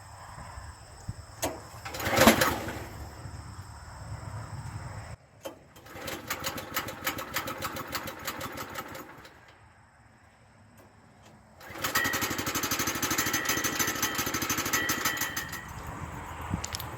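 Woodland Mills HM122 sawmill's small gasoline engine being started after sitting four weeks. There is a short loud burst about two seconds in, the engine runs from about five seconds, drops away near ten seconds, and runs steadily again from about twelve seconds.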